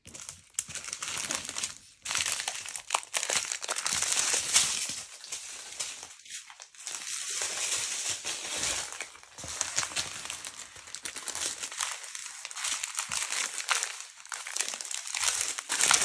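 Small plastic bags of diamond-painting drills crinkling and rustling as they are handled and sorted, with brief pauses about 2 seconds in and around 6 to 7 seconds in.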